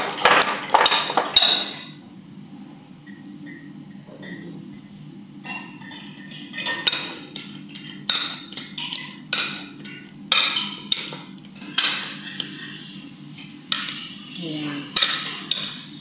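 Hand metal whisk scraping and clinking against the side of a bowl while stirring milk and cream into mashed potato. Rapid strokes at first, a quieter lull of about three seconds, then irregular clinks again through to the end.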